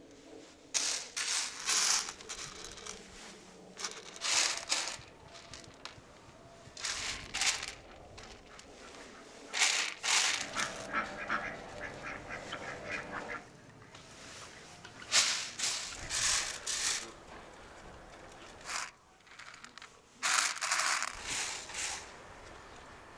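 Dry lentils rattling and scraping as a hand sweeps them across a large metal tray, in repeated short bursts a few seconds apart as they are spread out and picked through. A bird calls in the background around the middle.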